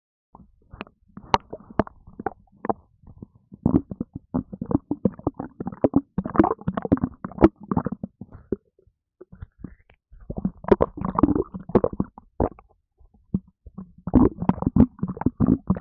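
A human stomach gurgling and rumbling in quick, irregular pops and bubbling, thin at first, then in three busier bouts about four, ten and fourteen seconds in. The gurgling comes from gas in a stomach upset by a can of Red Bull energy drink.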